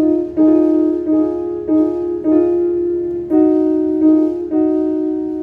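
Piano keyboard playing a slow worship-style chord progression in F-sharp major, about seven chords struck one after another, each left ringing into the next.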